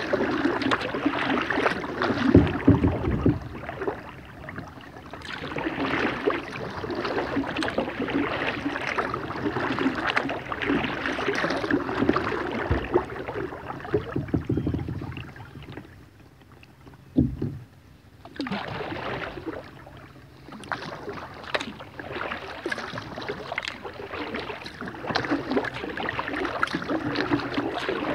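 Kayak paddle strokes on calm river water: the blades dipping and splashing, with water running off them. There are a few low thumps, about two seconds in and again during a short lull past the middle, before the strokes pick up again.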